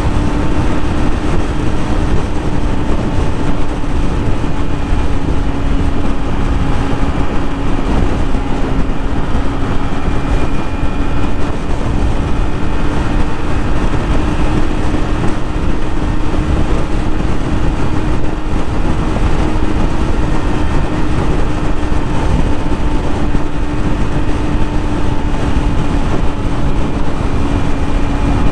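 Yamaha YZF-R6 600cc inline-four engine running at a steady cruising speed, its note held even, under heavy wind rush on the rider's microphone.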